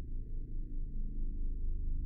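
Federal Sign & Signal 2T22A two-tone mechanical siren sounding a low, steady tone that wavers slightly in loudness.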